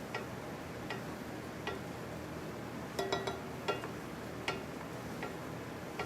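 Light, irregular clinks of metal or glass cookware being handled, about eight in all with a quick cluster of three around the middle, each ringing briefly.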